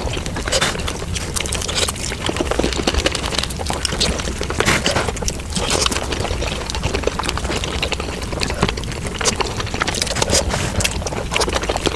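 Mukbang eating sounds of a whole chicken being chewed, played at five times speed: a dense, unbroken stream of quick clicks and mouth smacks with no pauses.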